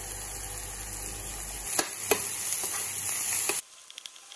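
Finely chopped onion sizzling in hot oil in a stainless steel frying pan, with two sharp knocks about two seconds in. The sizzle cuts off suddenly near the end, leaving a faint crackle and the clicking of a metal spoon stirring the onion in the pan.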